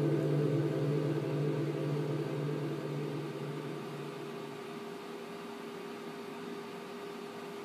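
A held musical chord rings on and slowly fades out over about five seconds, leaving a faint steady hiss.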